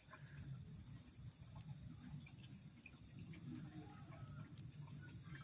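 Quiet background with crickets chirring faintly and steadily, high-pitched, over a low hum.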